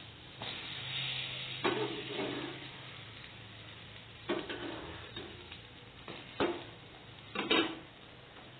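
Egg-dipped bread slices sizzling as they fry in a nonstick pan. A spatula knocks and scrapes against the pan four or five times as the slices are turned over, the loudest knock coming near the end.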